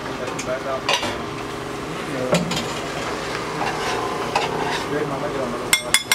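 A dosa sizzling steadily on a hot flat griddle (tawa), with a few sharp metal clicks and scrapes of a spatula against the griddle and a quick run of taps near the end.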